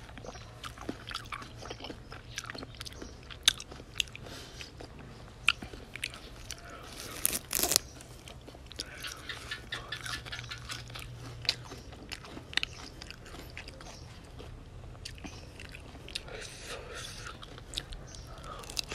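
Close-up mouth sounds of chewing raw shrimp and fresh herb leaves: wet crunches, clicks and smacks, with a louder crunch about seven seconds in.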